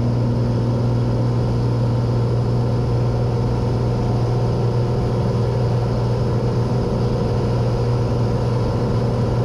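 Cessna 182's six-cylinder piston engine and propeller droning steadily in flight, heard inside the cabin.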